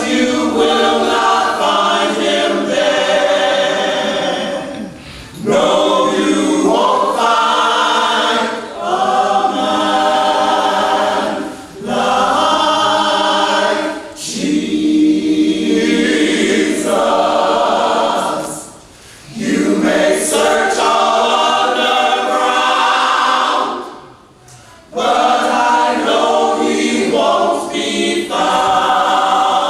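A choir singing a gospel song a cappella, in sustained phrases of several seconds with short breaks between them.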